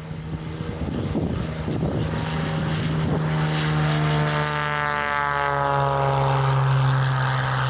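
Cessna 210's single piston engine and propeller passing by on takeoff, growing louder from about two seconds in, then its pitch sliding steadily down as it goes past.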